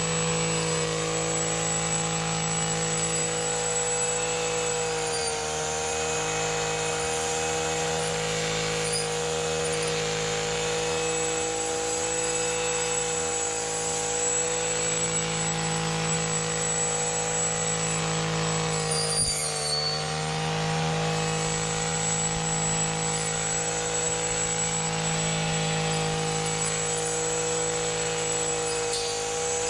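An engine running steadily at high speed, its pitch dipping briefly twice as if under load.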